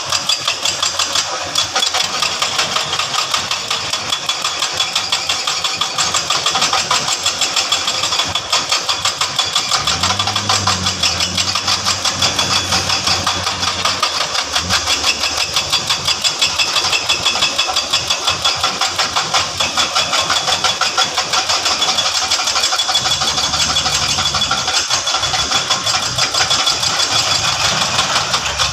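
Diesel engine of construction machinery running with a rapid, even pulsing. A second, deeper engine drone comes in twice and fades again.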